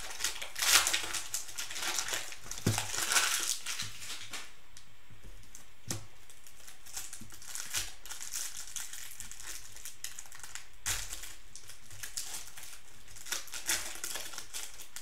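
Plastic cello-pack wrapper of 2019-20 Panini Prizm basketball cards crinkling and crumpling as it is torn open and handled, busiest through the first four seconds. After that come quieter crinkles and a few light clicks of cards being handled, with another burst of crinkling near the end.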